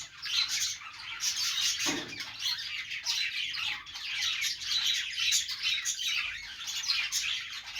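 Pet budgerigars chattering with continuous rapid chirps, squeaks and warbles, a dense unbroken stream of calls.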